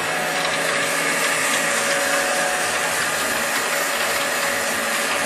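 Steady whir and rush of air with a faint steady whine from a running Monarch 10EE toolroom lathe, at the back by its electrical cabinet and cooling motor.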